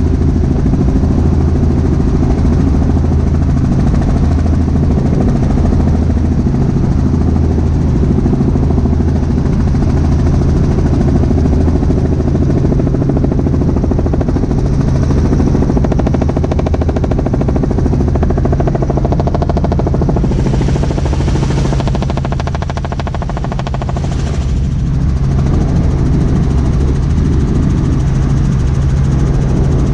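Cabin noise of a Robinson R44 Raven II helicopter in flight: its six-cylinder Lycoming piston engine and rotors drone steadily as a deep hum, easing slightly about three-quarters of the way through.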